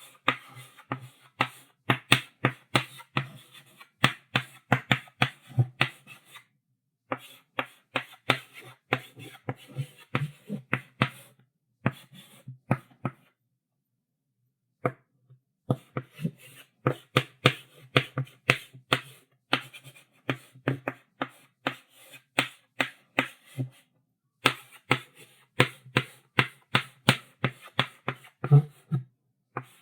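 Chalk writing on a blackboard: quick, sharp strokes several times a second, in runs broken by short pauses, the longest about halfway through.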